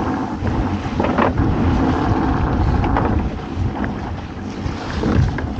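Strong wind buffeting the microphone on a small open boat in rough weather, a steady rumbling rush, with a few brief knocks about a second, three seconds and five seconds in.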